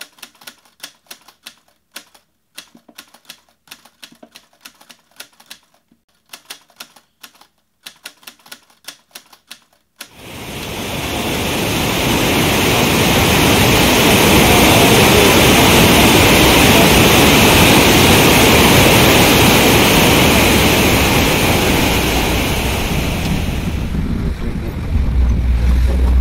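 Rapid typewriter key clicks in short runs for about ten seconds. Then the steady rushing of the Parvati River's rapids fades in and holds. Near the end it gives way to the low hum of a bus engine heard from inside the cab.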